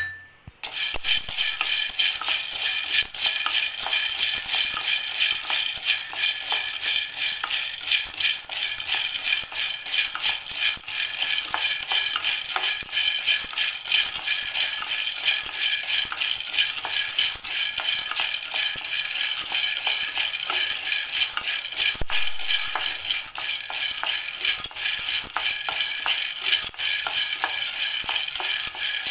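Roasted gram (pottukadalai) rattling and scraping against a steel kadai as a wooden spatula stirs it during dry roasting: a dense stream of small clicks that starts about half a second in, over background music.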